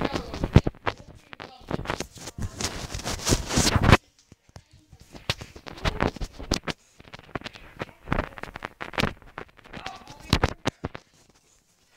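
Scraping and rubbing on a phone's microphone as the phone is handled. The noise is dense and loud for about four seconds, cuts off sharply, then comes back as sparser rustles and knocks.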